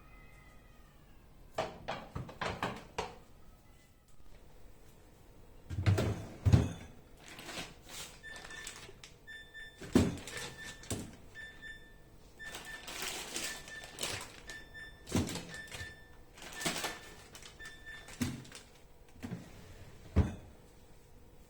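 Household handling sounds: knocks, thunks and clatters of things being moved and set down, loudest about six and ten seconds in. Through the middle, a short high electronic beep repeats about twice a second for roughly ten seconds.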